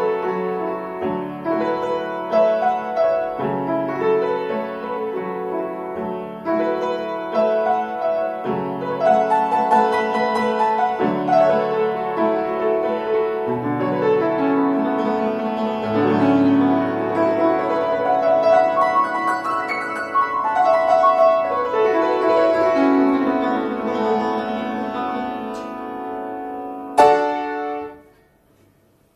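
Upright piano played solo: a melody over shifting chords, ending in one loud closing chord about 27 seconds in that is cut off about a second later.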